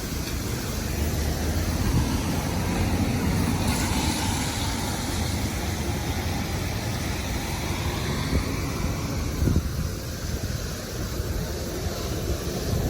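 Strong typhoon wind gusting and buffeting the microphone, with a rushing swell of wind about four seconds in.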